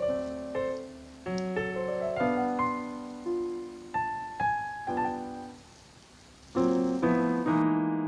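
Background piano music: a slow melody of struck notes and chords, each fading away, with a brief lull before fuller chords come in near the end.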